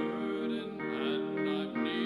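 A slow hymn sung with instrumental accompaniment, the notes held long with changes about every second.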